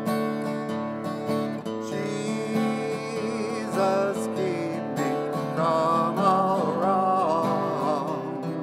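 Music: strummed acoustic guitar chords, with a wavering melody line coming in about two seconds in.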